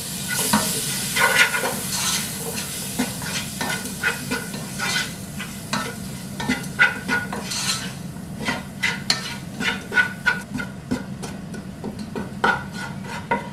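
Slotted wooden spatula stirring and scraping against a nonstick pot in quick irregular strokes, over a steady sizzle of chopped tomato and onion-spice masala frying in ghee.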